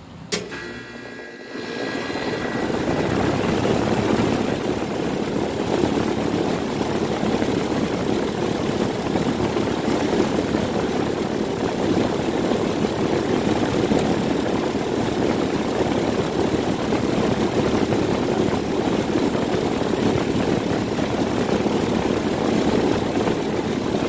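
1999 4-ton Corsaire by Rheem central air conditioner condensing unit starting up: a sharp click, a brief hum, then the compressor and condenser fan come up to a steady, even running noise.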